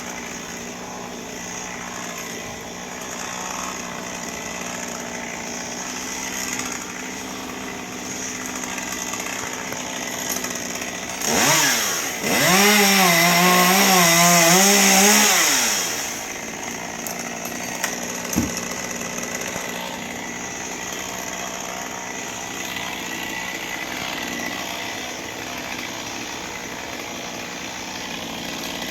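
Chainsaw idling steadily, revved briefly about eleven seconds in, then held at full throttle for about four seconds with its pitch wavering as it cuts into the pine, before dropping back to idle. A sharp click a couple of seconds after the cut.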